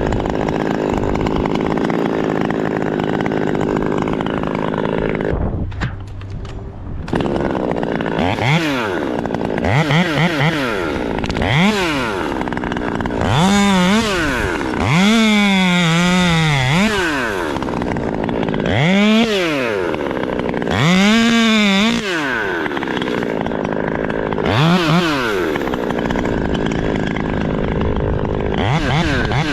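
Chainsaw running steadily, then from about eight seconds in revved up and back down over and over, each rev rising and falling in pitch within a second or two.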